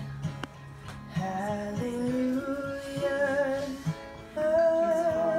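A woman singing to her own acoustic guitar strumming, ending on a long held note near the end.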